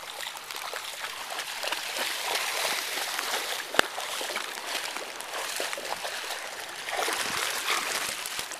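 Floodwater swishing and splashing as someone wades through it, about knee deep, swelling louder twice. A sharp click a little under four seconds in.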